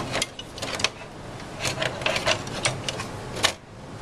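Sheet-metal PCIe riser assembly of a Cisco UCS C240 M3 server clicking and knocking against the chassis as it is lowered and pressed into its motherboard slots: a series of irregular clicks, the loudest about three and a half seconds in.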